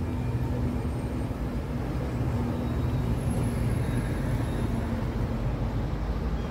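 City street traffic: a motor vehicle's engine running with a steady low hum over the rumble of road noise.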